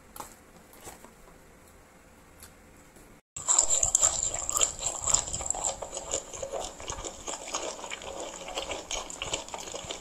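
Close-up crunching and chewing of a crunchy fried snack mix of beans, corn, peas, peanuts and cracker sticks: dense, irregular crackling that starts suddenly about a third of the way in, after a few faint clicks. A thin high steady tone sits over the crunching.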